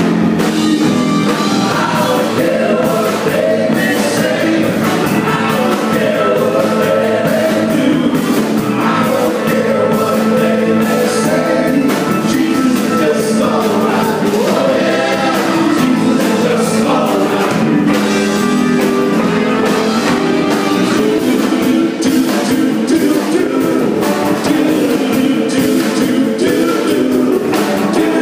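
Live rock-and-roll band playing a song: electric guitars, bass, drum kit and keyboard with sung vocals.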